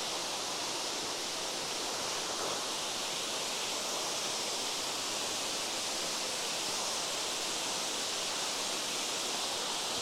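Talakona Falls, a tall waterfall cascading over a rock face: a steady, even rush of falling water.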